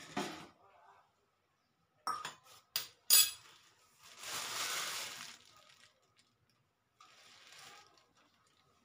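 Stainless steel bowls and spoons clinking and knocking on a kitchen counter: a few sharp clinks about two to three seconds in, the loudest near three seconds, then a longer noise about four seconds in and a fainter one near the end.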